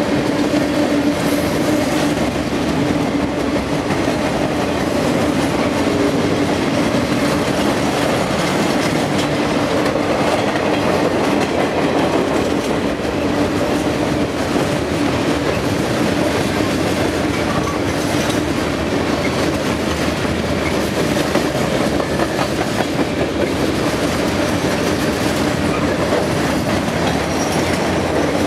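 Freight train cars, tank cars and then boxcars, rolling past close by: a steady rumble of steel wheels on rail with clicking over the rail joints. A steady low hum stands out for the first few seconds and comes back near the end.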